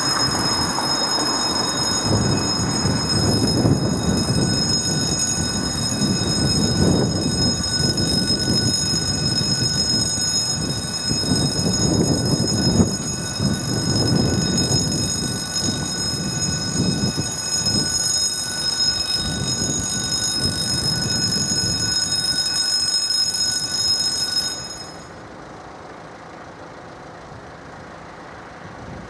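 Level-crossing warning bell ringing as a steady, continuous high tone over a fluctuating low rumble. The bell stops abruptly about 25 seconds in, once the barriers are down.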